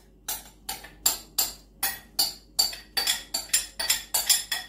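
Spoon clinking and scraping against a glass mixing bowl in quick repeated strokes, about three a second, as chunks of apple are stirred into cake batter.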